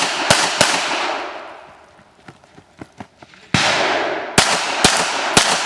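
Pistol shots fired rapidly on a timed action-pistol stage: two shots in the first second, then four more in the second half, each with an echoing tail.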